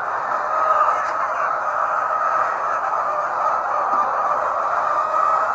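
Poultry flock of hens clucking and calling all at once, a steady, dense chatter with no pauses.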